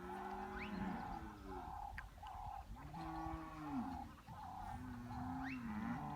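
Cattle mooing: three long calls one after another, each bending in pitch. A faint regular pulsing, about one and a half beats a second, runs behind them.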